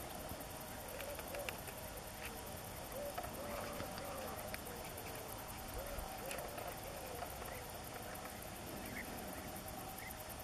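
Wolf pups whining and squeaking: a string of short, arching whines over a steady hiss, with a few faint clicks.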